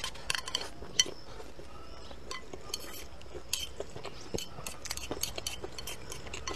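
Chopsticks clicking and scraping against a glazed ceramic plate as food is picked up, with many short irregular clicks and the sharpest about a second in; soft chewing between the clicks.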